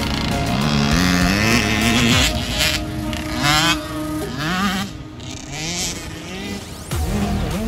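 Small motocross bike engine revving hard, its pitch climbing and dropping several times as the bike accelerates and shifts.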